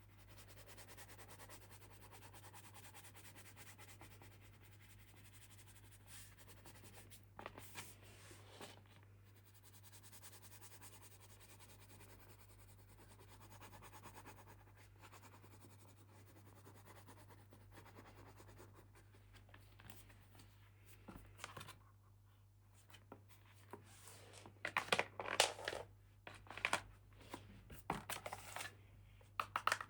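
Toy packaging being handled up close: soft scratching and rubbing, a few light clicks, then a louder run of irregular crinkling and tearing of wrapping near the end.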